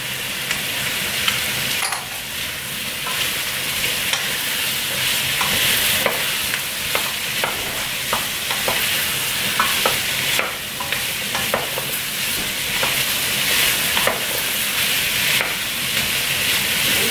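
Cubed pumpkin and onion sizzling in a stainless steel pot while a wooden spoon stirs them, with light knocks and scrapes of the spoon against the pot.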